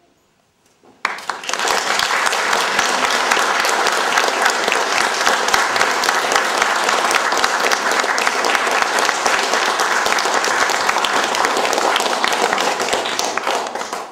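Small audience applauding, the clapping breaking out suddenly about a second in after a brief silence, holding steady and tailing off at the end.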